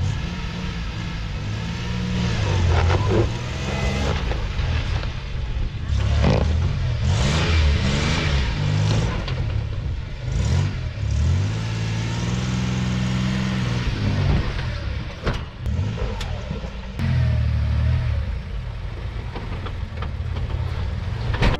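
A 1995 Toyota 4Runner's engine revving up and down under load as the truck crawls over rocks, with a few short rushes of noise around the middle.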